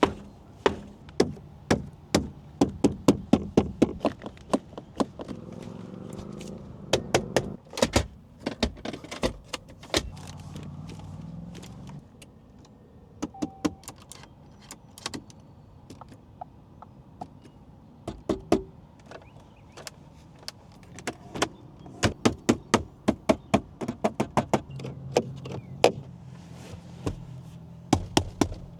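Repeated sharp taps and knocks on the interior trim and panels of a 2025 Volkswagen Tiguan, checking for squeaks and rattles. The knocks come irregularly, sometimes several a second, over a low steady hum.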